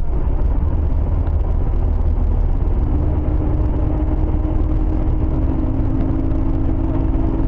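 Steady low road and engine rumble inside a car cruising at highway speed. About three seconds in, a steady two-note tone joins it.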